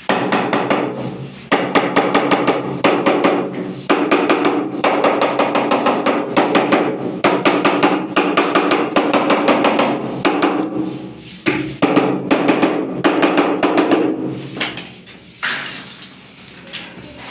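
Rubber mallet tapping a large porcelain wall tile to bed it into the tile adhesive, in quick runs of taps, several a second, with short pauses between runs; the taps grow quieter near the end.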